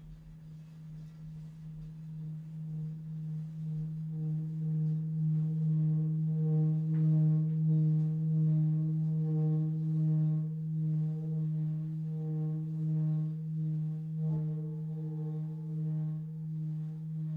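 Large brass singing bowl played around its rim with a suede-covered wooden mallet: a low sustained hum that swells up over the first several seconds, upper overtones joining in, then holds with a slow wavering pulse. A light tick of the mallet against the bowl about 14 seconds in.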